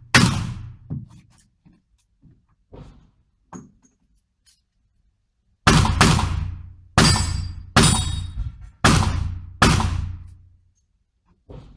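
Gunshots: the last shot of a fast string, a few light knocks and clicks of handling, then six slower shots about a second apart, the pace and count of a Chiappa Rhino 40DS .357 Magnum revolver emptying its six-round cylinder.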